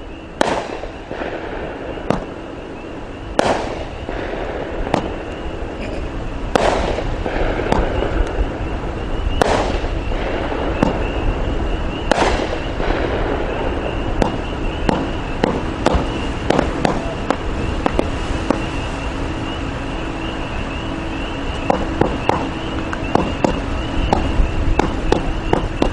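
A 500g consumer fireworks cake (Cutting Edge 'Above and Beyond') firing in a slow sequence: single loud shots about every three seconds, each trailing off in a hiss. From about halfway it turns into a denser run of smaller pops and crackles.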